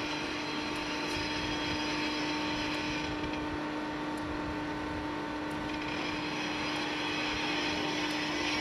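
Railway snow-clearing train's engine running in a steady drone with a constant hum and hiss.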